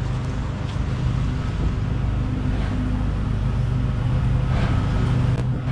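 Soft-wash sprayer rig running steadily with a low motor hum under the hiss of spray, as the bleach-and-surfactant mix is sprayed onto the siding.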